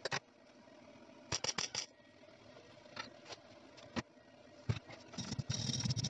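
Hand wire brush scrubbing fresh tack welds on a steel tube in quick scratchy strokes, starting about five seconds in. Before that, a few scattered metallic clicks and knocks.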